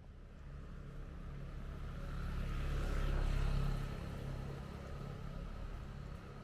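A motor vehicle driving past on the street. Its engine hum and road noise grow louder to a peak about three seconds in, then fade away.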